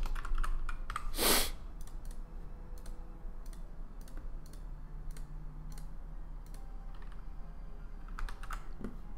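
Computer keyboard keystrokes and clicks: a quick run of keys at the start, a louder short puff of noise about a second in, then scattered single clicks and a short cluster of clicks near the end.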